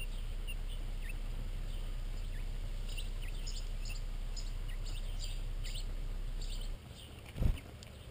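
Small songbirds chirping: many short, high chirps in quick succession, busiest around the middle. A brief low thump comes near the end.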